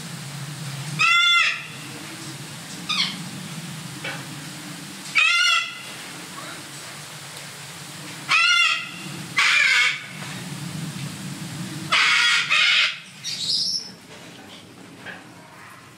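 White cockatoo screeching: loud, harsh calls of about half a second each, repeated every few seconds, some in quick pairs.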